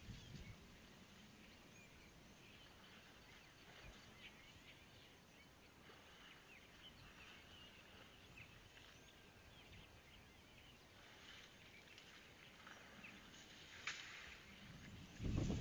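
Near silence: faint outdoor ambience with small, high, scattered chirps of distant birds. A sharp click comes about fourteen seconds in, and a louder low noise starts just before the end.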